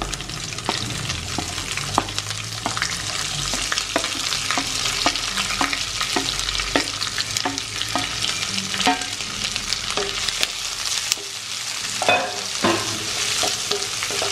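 Sliced shallots sizzling in hot oil in a nonstick kadai on a lowered flame, with many small crackles and clicks. A wooden spatula stirs and scrapes through them near the end.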